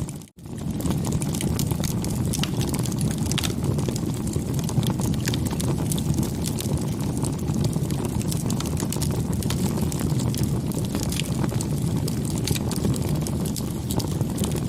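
Campfire burning: a steady low rush of flame with frequent small crackles and pops from the wood. The sound drops out for an instant near the start.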